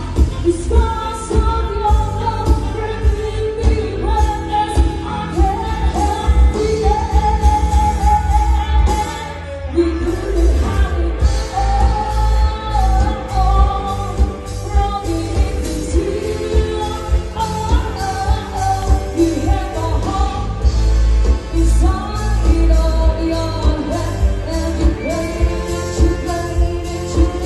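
A woman singing pop music live with a band through a loudspeaker sound system, over a steady beat with strong bass.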